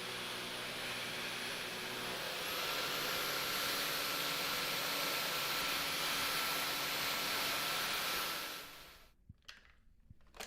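Dyson V15 Detect cordless stick vacuum running with a steady whir. About two seconds in, its motor steps up to a higher, louder whine. Near the end it winds down and stops, followed by a couple of clicks.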